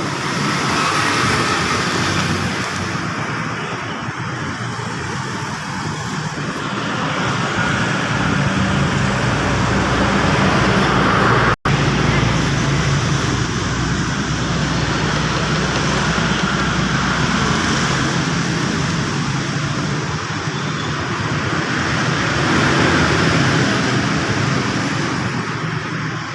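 Steady motor-vehicle noise: an engine running with road traffic around it. The sound breaks off abruptly for an instant about twelve seconds in.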